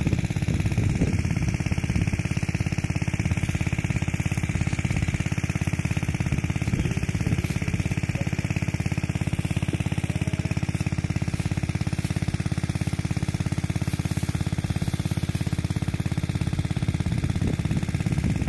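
Small engine-driven water pump running steadily with a fast, even chugging.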